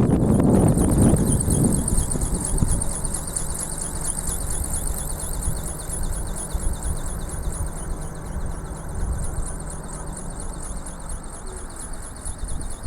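Strong wind buffeting the microphone, a heavy low rumble for the first two seconds that then eases off. A steady high-pitched whine, pulsing rapidly, runs underneath throughout.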